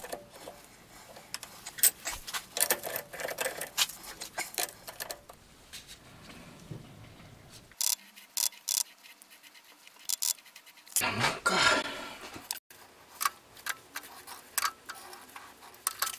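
Scattered light metal clicks and knocks of a four-jaw lathe chuck being adjusted by hand with a chuck key, as a jig is centred against a dial indicator, with a quieter stretch partway through.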